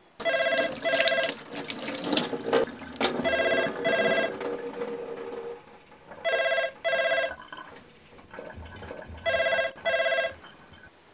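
A telephone ringing in the British double-ring pattern: pairs of short rings about every three seconds, four pairs in all. Under the first two pairs, running water starts suddenly and stops about halfway through.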